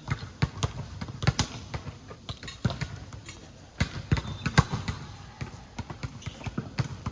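A ball bouncing on a court during a game: irregular sharp thuds, at times several a second, with voices in the background.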